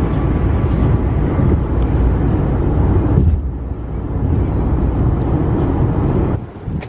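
Road and engine noise heard inside a car cabin at highway speed: a steady, loud noise with no speech. It eases a little about three seconds in and falls off sharply near the end.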